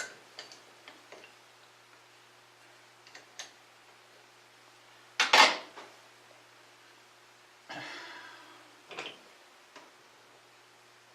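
Metal tools and parts clinking and knocking at a metal lathe while the cutting tool is adjusted: a few light clicks, a sharp double clank about five seconds in, and a short rattle near eight seconds, over a faint steady hum.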